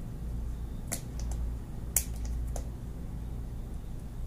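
A few sharp clicks and snaps of a small cardboard retail box being pried open by hand, the loudest about two seconds in, over a steady low hum.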